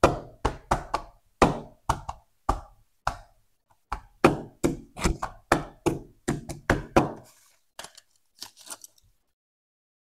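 Fingers tapping and knocking on a cardboard box and the small cardboard toy boxes in it: a quick, irregular run of knocks that stops about seven seconds in, followed by a few faint clicks.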